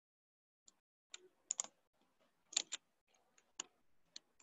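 Faint, scattered clicks on a computer's mouse or keys, about nine in all, some in quick pairs and one quick run of three, as the frozen presentation software is worked to get it going again.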